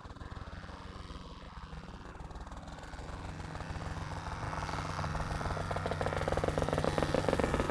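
Crop-dusting helicopter approaching, its rotor beating rapidly over the engine and growing steadily louder.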